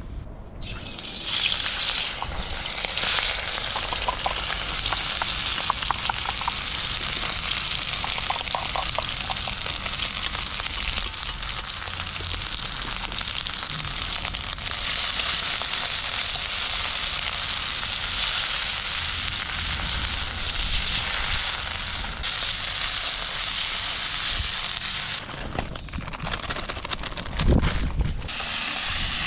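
Food sizzling and frying in a hot wok, a steady dense hiss with small crackles. It dips briefly near the end, and a low thump follows.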